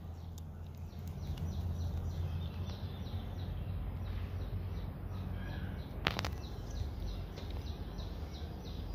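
Small birds chirping over a steady low outdoor rumble: a quick, continuing series of short, falling chirps. A single sharp click about six seconds in.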